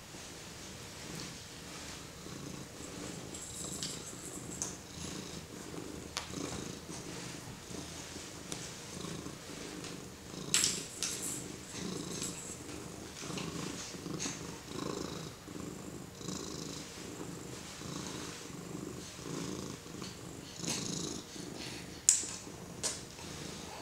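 Domestic cat purring steadily in an even pulsing rhythm, with a few brief rustles, the sharpest one near the end.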